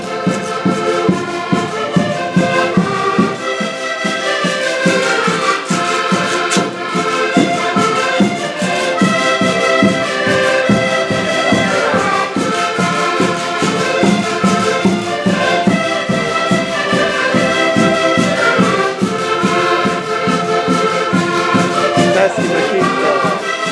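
Several Portuguese concertinas (diatonic button accordions) playing together while walking, a melody over a steady pulsing bass-and-chord accompaniment.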